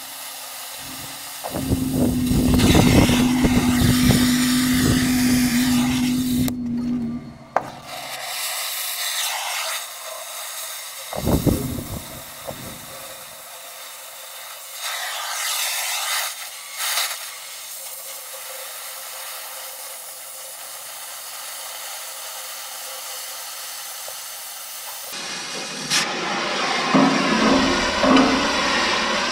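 Oxy-fuel cutting torch hissing as it cuts through the steel of an excavator's stick to remove the torn section. The cut is louder and rougher for several seconds near the start, then settles to a steadier hiss with a few brief louder flare-ups.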